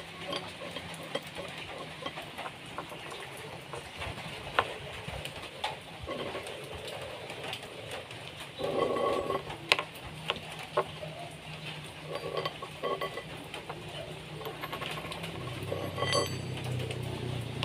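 Steel nut and spacer rings clinking and scraping as they are unscrewed and slid off a threaded spindle shaft, with a few sharp metallic clicks.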